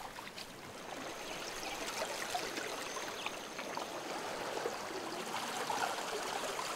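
Shallow sea water splashing and lapping in a steady wash, with small scattered splashes as a swimmer moves through it.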